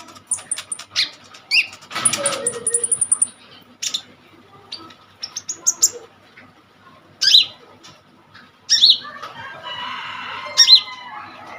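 Brown-throated sunbird (kolibri ninja) singing in full voice: rapid, sharp, very high chirps and thin high trills, with scattered down-slurred notes. A rustling flutter of wings comes about nine seconds in.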